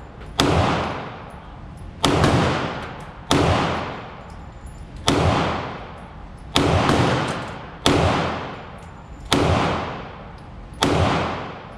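Eight single shots from a Glock 19X 9mm pistol, fired at a slow, steady pace of about one every one and a half seconds. Each crack is followed by a long echo that dies away.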